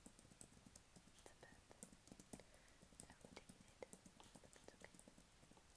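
Typing on a computer keyboard: soft, quick key clicks at an irregular pace, several a second.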